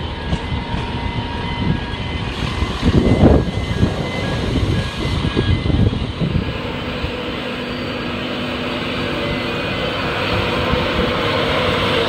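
Train noise on an electrified main line: a steady rumble with irregular low surges in the first half that settles and slowly builds toward the end as a train approaches. A faint repeating two-tone beeping sounds until about halfway.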